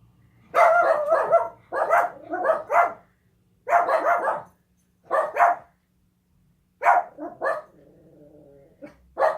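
A dog barking repeatedly, in about six short runs of barks with brief pauses between them.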